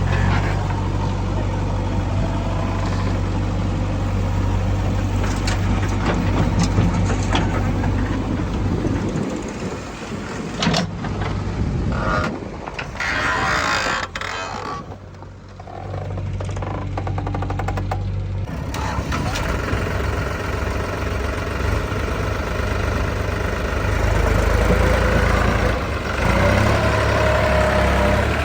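Heavy diesel engines of a backhoe loader and tractors running steadily, with mechanical clatter over a low engine drone. The sound thins out for a few seconds in the middle, then the engine drone comes back steady.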